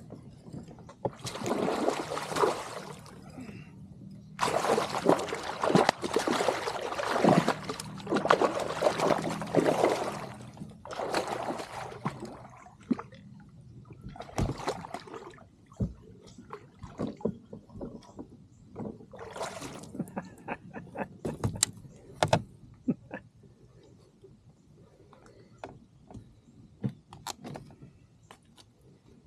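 Water splashing and sloshing in loud bursts beside a kayak as a hooked bass thrashes at the surface, strongest in the first half. Later come scattered clicks and knocks, with a low steady hum under the first half.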